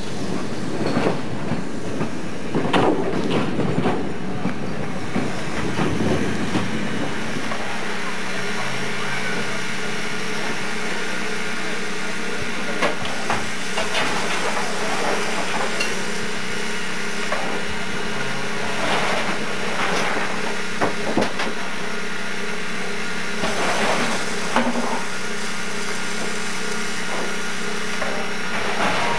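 Train on a heritage railway: rolling noise with knocks for the first seven seconds or so, then a steady engine hum with occasional clanks.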